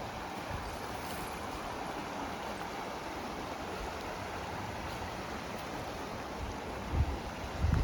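Steady rush of flowing creek water, with a couple of low thumps near the end.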